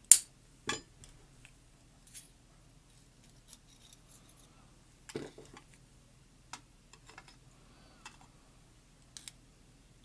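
Small metal clicks and clinks of a pin-tumbler lock's driver pins and springs being picked out of the pin chambers with tools during disassembly. A sharp click at the very start, then scattered fainter taps, with a louder cluster about halfway through.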